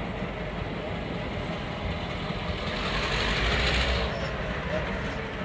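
EMD GP9 diesel locomotive running and rolling slowly along the track, a steady low engine rumble with wheel and rail noise, growing louder as it nears and loudest about three to four seconds in.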